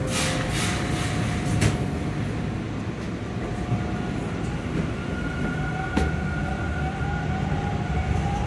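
Toronto subway train pulling out of the station, heard from inside the car: a steady rumble of wheels on the track, a few sharp knocks in the first couple of seconds, and a faint motor whine that climbs in pitch as the train speeds up, with the rumble growing louder in the second half.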